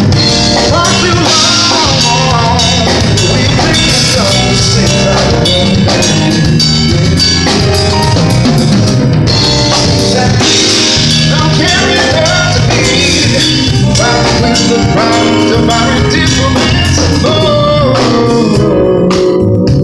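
Live band playing with a full drum kit, bass and keyboards, cutting off just at the end.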